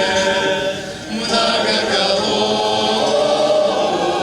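Choir singing a slow Russian song, holding long drawn-out chords. The sound dips briefly about a second in before a new chord comes in.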